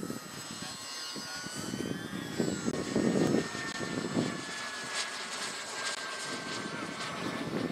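Small gas-turbine engine of a radio-controlled model Tornado jet in flight: a high turbine whine that glides up and down in pitch over a rushing jet noise, loudest a few seconds in.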